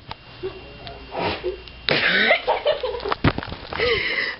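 A person's voice imitating a cat fight: a few short, breathy, noisy bursts with brief yowl-like tones, and a sharp click a little after three seconds in.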